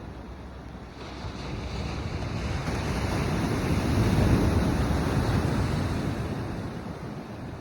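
Ocean surf: a wave surges in, swelling to a peak midway and then washing away, with wind rumbling on the microphone.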